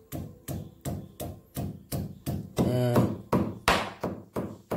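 Stone pestle pounding soaked dried beef in a stone mortar: a steady rhythm of dull knocks, about three or four a second, as the rehydrated meat is crushed flat.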